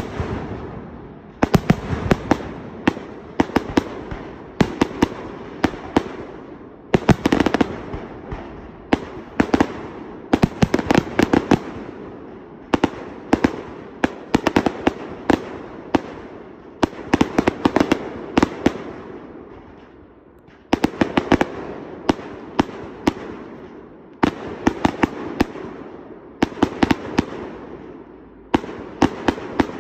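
Aerial display firework shells bursting in rapid, overlapping volleys: sharp bangs several times a second with echoing rumble between them, easing briefly about two-thirds of the way through before picking up again.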